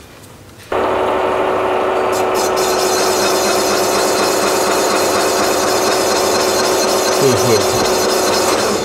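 Cylinder boring machine cutting into a cylinder bore of an Audi RS6 V8 Alusil engine block: a loud, steady machining noise with one constant tone, starting abruptly about a second in and stopping at the very end.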